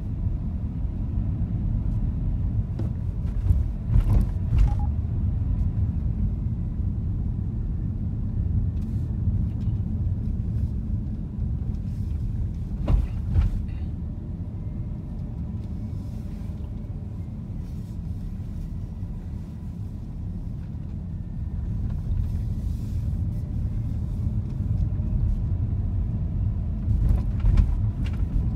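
A car driving, with a steady low rumble of road and engine noise. A few brief knocks come through, about four seconds in, around thirteen seconds and near the end.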